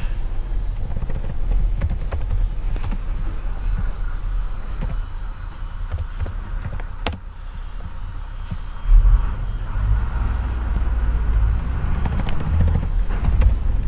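Steady low background rumble, rising a little about nine seconds in, with scattered clicks of computer keyboard typing and mouse clicks, a small cluster of them near the end.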